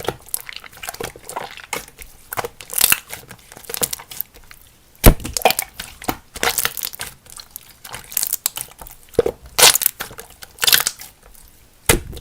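Close, irregular crinkling and crackling handling sounds: a run of short crackles and squishes at uneven intervals, with the loudest crack about five seconds in.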